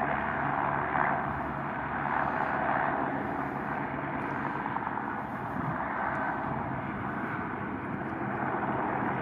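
Steady rushing noise from two Airbus H125M helicopters' turbine engines and rotors.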